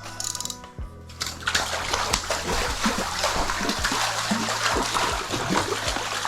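Water splashing and sloshing in an ice-fishing hole as a big tiger trout thrashes while it is being landed, starting about a second in and going on in quick, irregular splashes.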